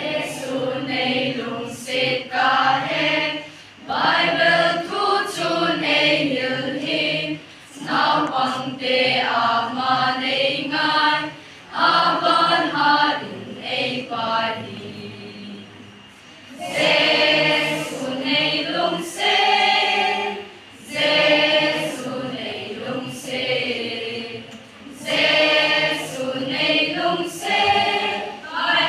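A children's choir singing together in phrases, with short breaks for breath between the lines.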